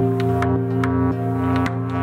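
Background music: held low chords over a light, steady ticking beat.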